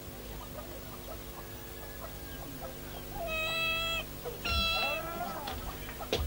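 A cat meowing twice, each call just under a second long, the second one wavering in pitch.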